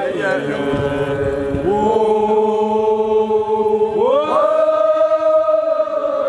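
A group of voices chanting in long held notes, gliding up to a higher held note about four seconds in.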